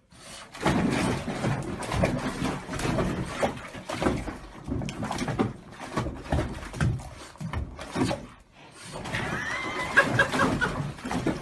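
A dog thrashing and rolling in a bathtub of bubbly water, splashing in repeated irregular bursts, with the dog's own vocal sounds mixed in. A short, higher pitched sound comes about nine to ten seconds in.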